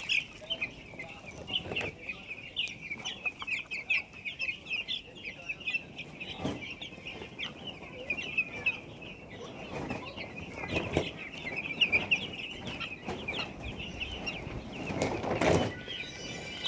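A crowd of eight-day-old chicks peeping continuously, many short high chirps overlapping. A few louder rustles or knocks break in around the middle and about three-quarters of the way through.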